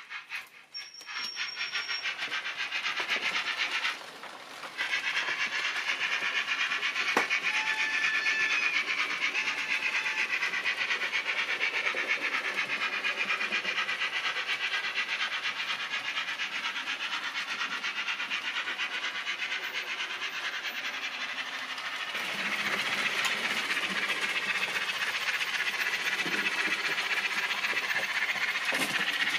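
Model steam train running on a model railway layout: the locomotive's motor and the wheels of the locomotive and coaches on the track make a steady, busy running sound with rapid fine clicking.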